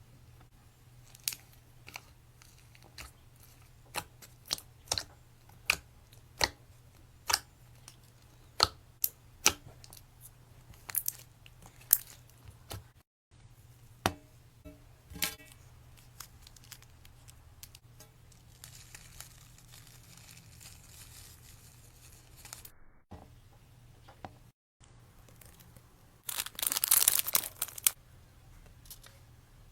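Slime being played with by hand, giving a series of sharp pops and clicks, a few a second, then a quieter stretch and a loud crackling burst near the end.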